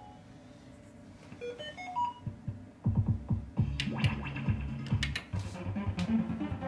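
ADP 'Sonne' slot machine's electronic sound effects: a few short beeps stepping up in pitch, then a low rapid electronic pulsing with sharp clicks as the lamps climb the risk ladder during its sun-game feature.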